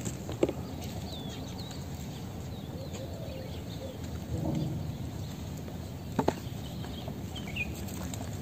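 Outdoor ambience: a steady low background noise with scattered faint bird chirps, and two sharp knocks, one just after the start and one about six seconds in.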